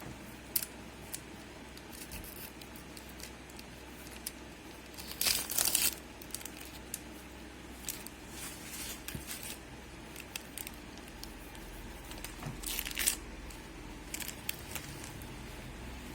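Something crinkling as it is handled by hand, in two short bursts about five seconds in and near twelve and a half seconds, amid scattered small clicks and taps.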